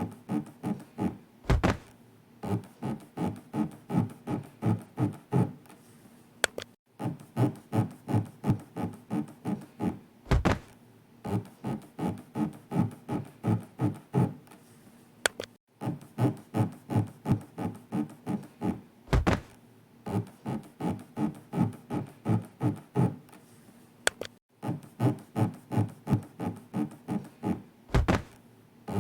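Rhythmic scraping sound effect, the 'zuri-zuri' of an elevator floor rubbing the inner walls, paced for slow elevator breathing. It comes in runs of about three to four strokes a second, each run lasting roughly four seconds. The runs are separated alternately by a brief break and a single low thunk.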